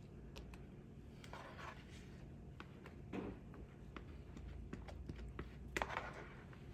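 Faint scraping and light tapping of a spatula against a plastic mixing bowl as thick peanut butter pie filling is scraped out, with a few sharper knocks about six seconds in.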